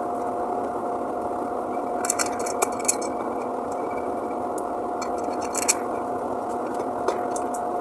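Steady mechanical hum with one constant tone, broken by scattered light clicks and taps.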